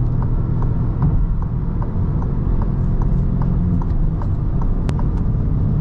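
Cabin noise of a Citroen C4 at highway speed: the 1.2 PureTech three-cylinder petrol engine running steadily under road and wind rumble, with a regular light ticking about two and a half times a second and one sharp click near the end.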